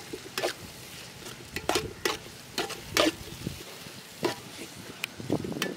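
Long steel ladle stirring and scraping sliced onions and green chillies frying in coconut oil in an aluminium pot, with a scrape or clink on the metal about every half second to second over a soft sizzle.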